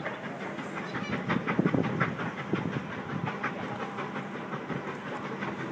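Train rolling slowly downgrade under dynamic braking, its wheels clicking over the rail joints about three to four times a second, with a faint hiss.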